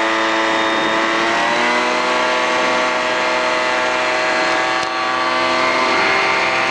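Titan Tornado II ultralight's engine and propeller at full throttle for a touch-and-go takeoff. The pitch rises over the first couple of seconds, then holds steady.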